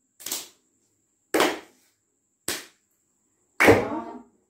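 Mridangam strokes played slowly and evenly, one stroke about every second, each sharp at the start with a short ring. The last stroke is the loudest.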